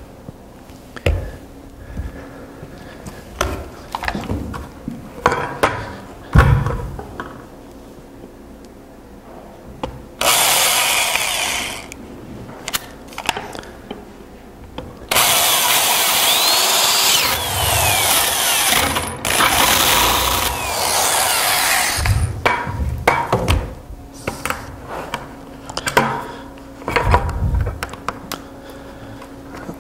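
Electric drill cutting a hole in the side of a black plastic bucket, for a grommet fitting in a hydroponic bucket. It runs twice: a short run about ten seconds in, then a longer one of about seven seconds. Knocks and thumps of the bucket being handled come before and after.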